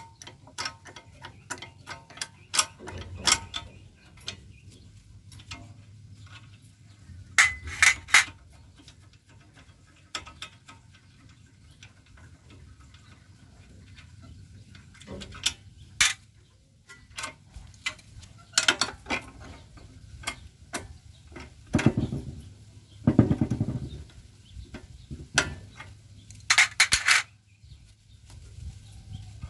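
Hand tools working on the injector mounting of a Yanmar air-cooled diesel engine as the injector is unbolted: scattered metal clicks and clinks, with two heavier knocks about two-thirds of the way through.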